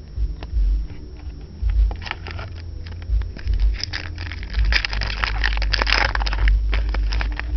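Trading card pack being handled: scattered clicks and rustles, then a dense crinkling of the foil wrapper for about two seconds past the middle, over dull bumps of hands near the microphone.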